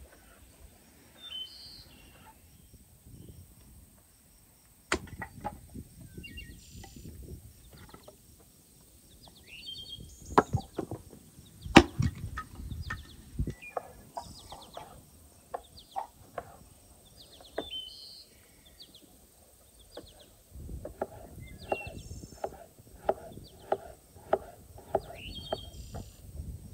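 Kitchen knife cutting vegetables on a wooden cutting board: a series of short knocks, a few louder ones in the middle, settling into steady chopping at about two strokes a second near the end. Birds chirp in the background.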